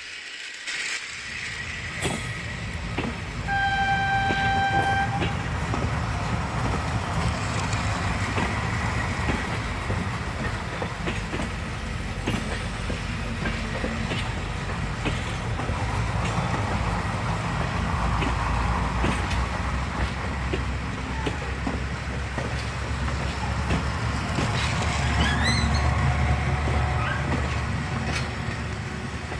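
A train running with a steady rumble and clatter. A horn sounds once, a single held tone of about a second and a half, a few seconds in.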